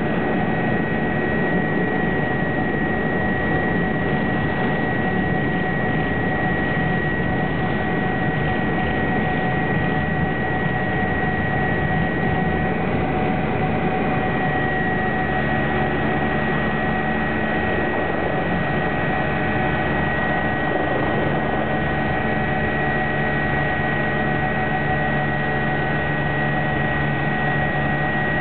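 BK 117 twin-turbine helicopter at takeoff power during lift-off and climb-out, heard from inside the cockpit: a steady high turbine whine over dense rotor and engine noise.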